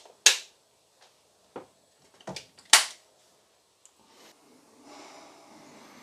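Plastic rocker switch on a wall socket clicking as the dishwasher's power is switched off: a sharp click just after the start, two softer knocks, and another sharp click a little before three seconds in.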